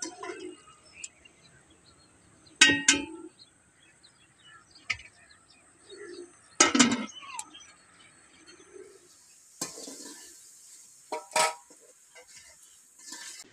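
Scattered bird calls over a quiet outdoor background, with three louder, sharper calls at intervals of about four seconds.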